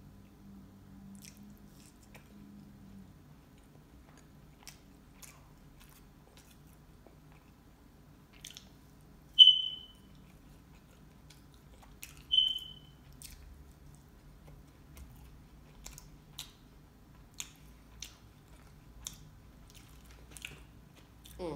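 Close-miked eating sounds: soft chewing and mouth clicks while eating French fries and chicken wings. Two short high squeaks come about nine and twelve seconds in, and they are the loudest sounds.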